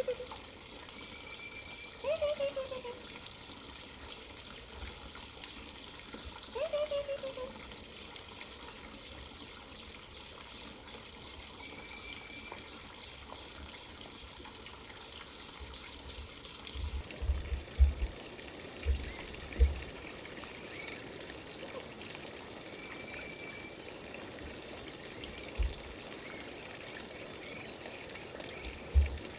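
Steady running water with a constant high insect drone over it. Three short falling calls are heard in the first seven seconds, and a few low thumps come later.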